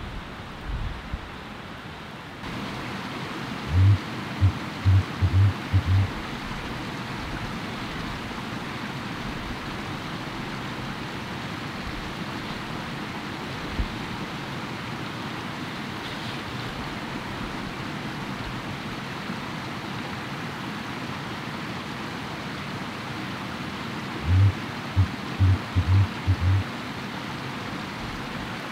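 Male dusky grouse hooting, two series of about six very low hoots: one about four seconds in, the other near the end. Between them is a steady rushing background.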